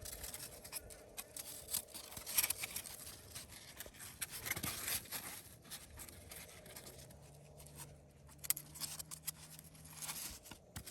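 Faint rustling, scraping and small clicks of hands working string around a thermocol (polystyrene foam) raft and toy.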